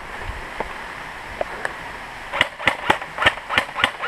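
Airsoft rifle firing single shots: a few faint clicks, then about six sharp shots in quick succession, roughly three a second, starting about two and a half seconds in.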